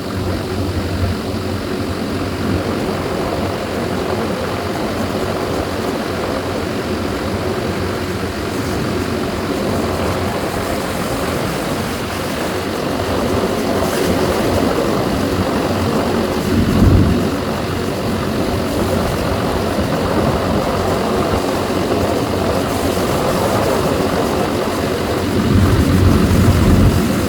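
Diesel engine of a heavy construction machine, an excavator or bulldozer, running steadily. It swells louder briefly about seventeen seconds in and again near the end.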